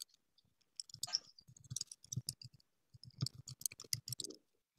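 Computer keyboard typing: two quick runs of key clicks, the first about a second in and the second about three seconds in.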